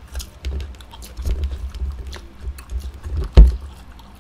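Close-up eating sounds of chow mein noodles and cucumber: chewing with many small wet clicks and smacks, plus soft low bumps and one loud thump about three and a half seconds in.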